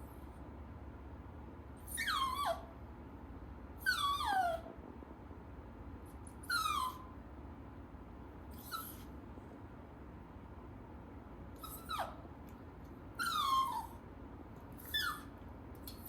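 Tiny toy poodle puppy whining: about seven short, high cries, each falling in pitch, coming irregularly a second or two apart.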